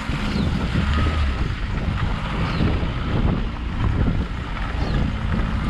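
Chevrolet Prisma 1.4's four-cylinder engine running as the car drives along a muddy dirt track, tyres rolling over the ruts. Wind buffets the microphone throughout.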